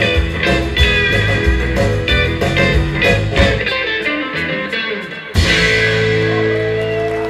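A live rautalanka band (twangy electric lead guitar instrumental rock) plays with drums and bass. About five seconds in the band stops briefly, then strikes a final chord that is held and slowly fades.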